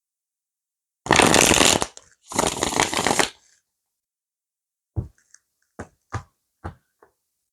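A tarot deck being shuffled in two quick runs of about a second each, then about five light taps as cards are laid down on the table.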